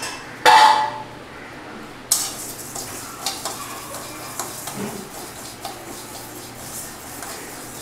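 A dog barks once about half a second in. Then a wooden spatula stirs dry split moong dal in a metal kadai as it roasts: the lentils rustle and scrape against the pan, with small clicks.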